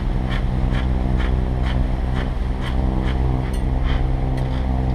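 A sailing catamaran's engine running at a steady speed while motoring, a constant low hum, with a light ticking about three times a second over it.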